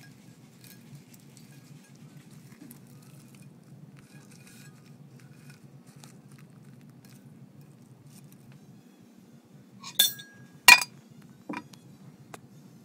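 Serving cutlery working on a plate while a whole fish is carved: faint light ticks and scrapes, then three sharp clinks near the end, the second the loudest and the first leaving a short ringing note.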